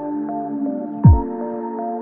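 Background electronic music: sustained synth chords with a single deep, falling bass-drum boom about halfway through.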